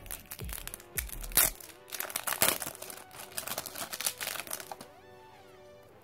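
Clear plastic shrink wrap crinkling and crackling as it is torn and peeled off a stack of trading cards, in quick, irregular crackles that stop about five seconds in.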